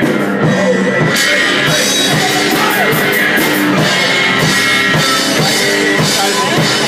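Live rock band playing loud, with drum kit and guitar.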